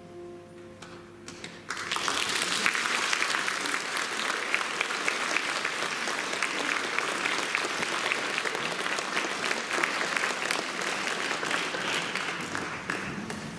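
Audience applauding, breaking out about two seconds in as the last held notes of the music fade, and lasting about eleven seconds before dying down near the end.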